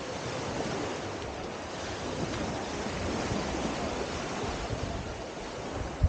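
Small waves lapping and washing up on a sandy shore, a steady hiss of gentle surf.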